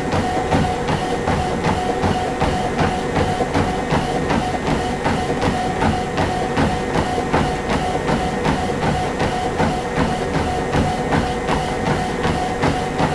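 Treadmill running with a steady whine, and footsteps landing on the moving belt in an even walking rhythm of about two a second.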